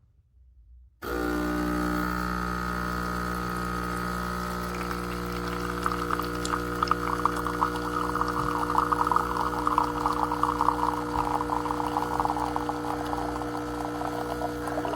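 Electric burr coffee grinder switched on about a second in, its motor running with a steady hum. From about five seconds in, a dense crackling joins it as beans are ground through the burrs.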